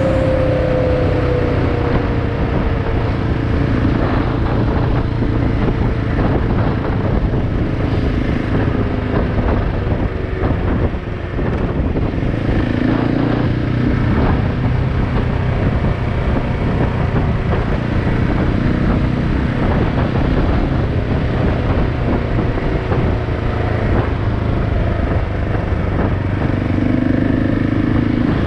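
KTM 690 Enduro's single-cylinder engine running steadily while the bike rides along, mixed with wind and road noise; the engine's pitch falls in the first couple of seconds.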